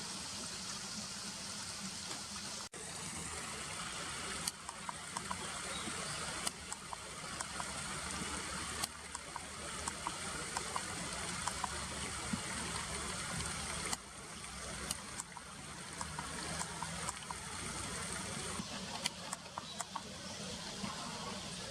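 River water running steadily over a shallow riverbed, with scattered short clicks from about four seconds in.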